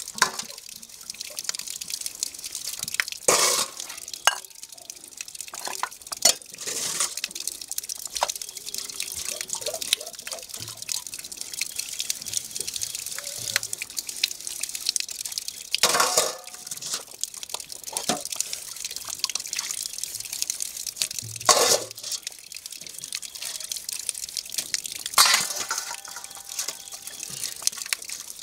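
Metal plates being scrubbed by hand and rinsed, with a steady scouring hiss, water splashing and dripping off the plates, and about five sharper clanks of the metal plates being handled.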